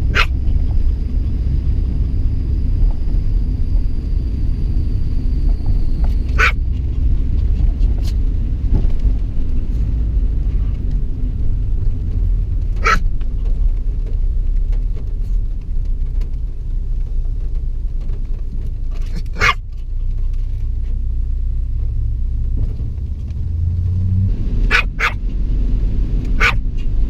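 Steady rumble of a moving car heard from inside the cabin, broken every six seconds or so by a short sharp bark from a Pomeranian, with two barks close together near the end.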